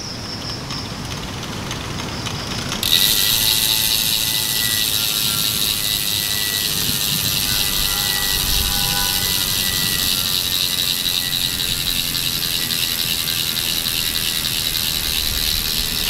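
Road bike's rear freehub buzzing as the lifted rear wheel spins freely: a rapid, steady ratchet of pawls clicking. It gets suddenly louder about three seconds in.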